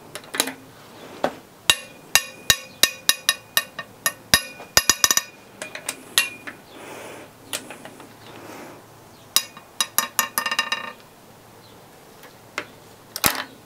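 Ratchet and socket wrench working the head bolts of a Honda K20 cylinder head: runs of sharp, ringing metallic clicks, several a second, in two bursts with a quieter stretch between.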